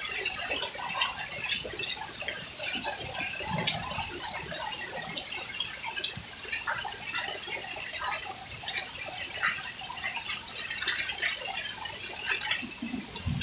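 Hailstorm: hailstones and rain pelting hard surfaces in a dense, irregular patter of small ticks and taps.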